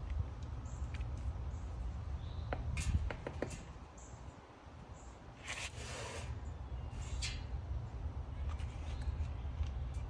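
Outdoor ambience: wind buffeting the microphone with a steady low rumble that eases for a moment in the middle, and small birds chirping faintly now and then. A few short rustles, the loudest a little past the middle.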